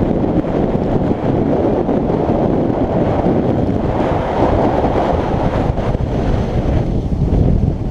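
Wind buffeting a microphone held outside the window of a moving camper van, with the van's road noise underneath.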